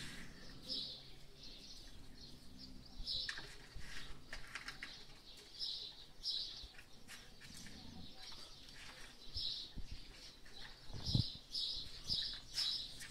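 Small birds chirping in short, repeated bursts, with a couple of low thumps near the end.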